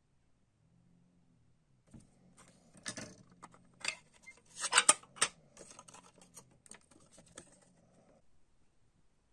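Handling noise from a clear plastic cassette case and its paper J-card insert: a run of sharp plastic clicks and rattles with paper rustling as the insert is taken out and unfolded. It starts about two seconds in, is loudest around the middle and dies away near the end.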